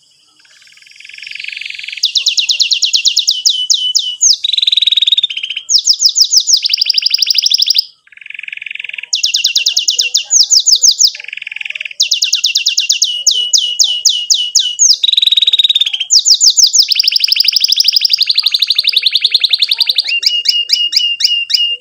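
Domestic canary singing a long song of rolling trills: phrase after phrase of fast repeated chirps, the note changing every second or two, with a short break about eight seconds in.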